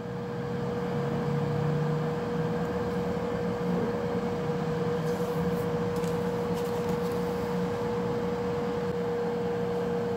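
Mayer MMAF800 air fryer running mid-cycle: its fan whirring steadily with a steady humming tone over it.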